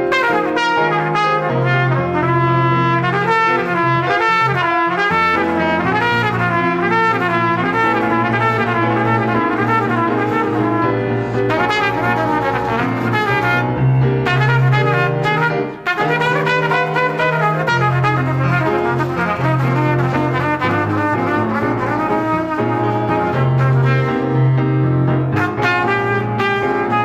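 Salsa music with a brass section of trumpets and trombones over a steady bass line, with a brief break about 16 seconds in.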